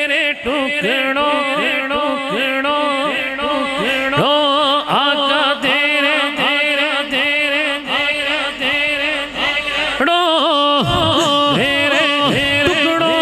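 A man singing a naat, an Urdu devotional song, into a microphone in flowing melodic phrases over a steady held drone. A new phrase starts about ten seconds in.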